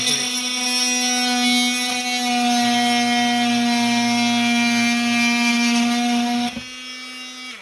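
Ferrex cordless oscillating multi-tool on speed setting 3, its blade vibrating through an old wooden fence post with light pressure: a loud, steady buzzing hum. It drops in level about six and a half seconds in, then stops.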